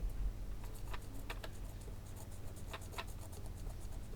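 Cotton bud wetted with contact cleaner scrubbing an oxidised copper switch pad: a few faint, short scratchy strokes, clustered about a second in and again near three seconds, over a low steady hum.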